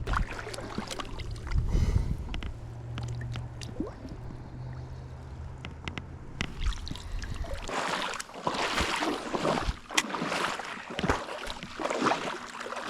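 A low rumble on the microphone, then from about eight seconds in, creek water splashing and sloshing in irregular bursts.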